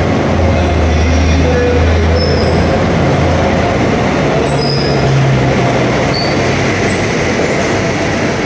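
Subway maintenance train moving along the track with a loud, steady rumble and low motor hum, and brief high-pitched wheel squeaks now and then.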